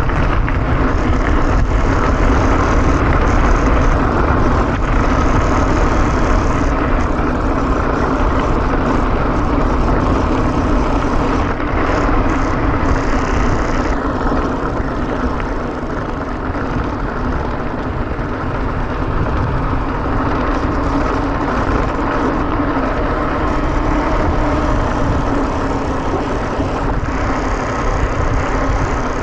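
Wind buffeting an action camera's microphone together with the rumble and rattle of a mountain bike rolling fast downhill over a rough trail. The noise is loud and steady throughout, easing a little about halfway through.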